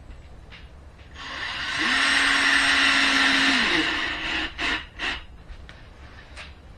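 Power drill/driver running for about three seconds, spinning up, holding a steady speed and then slowing, followed by two short trigger blips, as it drives a screw home.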